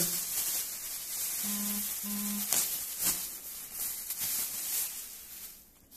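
Plastic wrapping rustling and crinkling as a plastic-wrapped chair part is handled, with a few sharp crackles. A man hums two short notes about a second and a half in.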